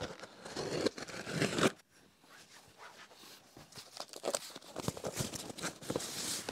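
Packing tape and cardboard tearing as a cardboard shipping box is opened, cut off suddenly a little under two seconds in. After that come quieter rustling and scraping of cardboard as boxes inside are slid out.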